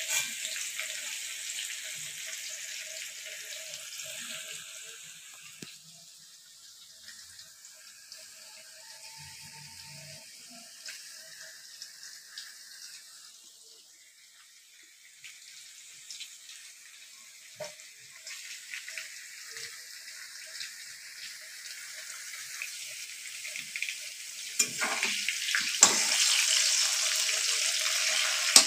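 Potato chunks sizzling as they fry in hot oil in a metal wok, a steady hiss that fades to faint in the middle and grows louder again near the end. A few knocks near the end come from the metal spatula against the wok.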